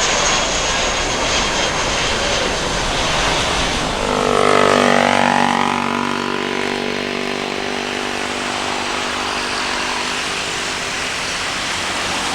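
Jet airliner engines at takeoff power, a dense roar with a high hiss. About four seconds in it changes to an engine whine that glides down in pitch, then settles into a steadier, lower roar.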